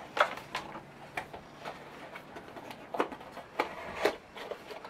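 Hands unpacking a small gadget from its cardboard box and plastic packaging: a string of irregular light clicks, taps and rustles.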